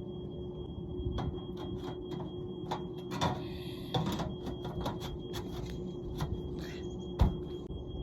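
Scattered knocks and clicks of installation work on a furnace, with one louder knock near the end, over a steady hum and a faint high whine.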